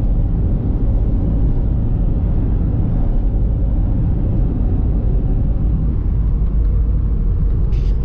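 Steady low rumble of a car driving at road speed, tyre and road noise with the engine heard from inside the cabin.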